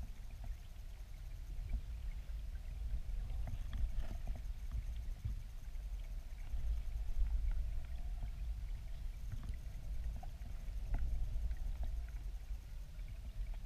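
Muffled, steady low rumble of water flowing at a small river weir, heard underwater from a camera on the riverbed, with faint scattered ticks.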